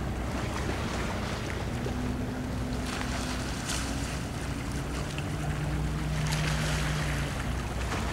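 Harbour-side boat engine hum, a steady low drone whose higher tones come and go, with wind on the microphone and a few faint clicks.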